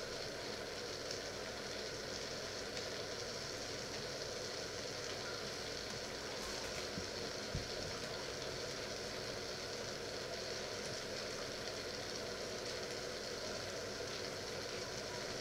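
Pot of water heating on an electric hob under its lid, giving a steady hiss.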